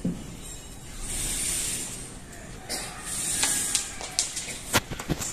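Handling noise from a microphone laid on a wooden podium: bursts of rustling hiss, then a run of sharp knocks and clicks in the last couple of seconds.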